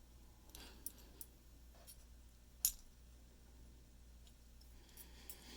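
A few small, sharp metal clicks and taps from tools and tiny lock pins as the pin stacks are taken out of a padlock cylinder, the loudest click about two and a half seconds in.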